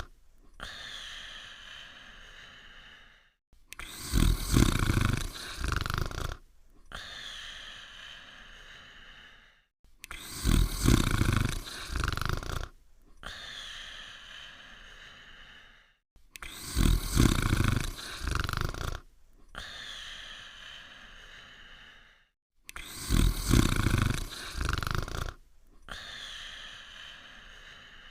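Cartoon dog snoring sound effect: a loud, rasping snore on each breath in, repeating about every six seconds, each followed by a quieter breath out with a thin whistling tone that fades away.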